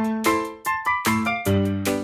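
Background music: bouncy piano or keyboard notes in a steady rhythm.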